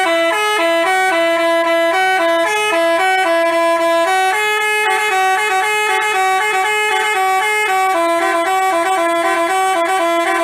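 Basuri telolet musical bus horn playing a tune: loud, steady horn notes stepping up and down in pitch every fraction of a second, held without a break.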